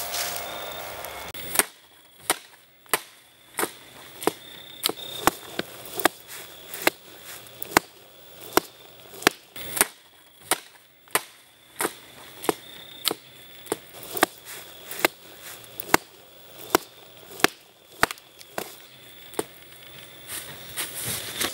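A long series of sharp single knocks, about one every two-thirds of a second, over a faint steady high tone.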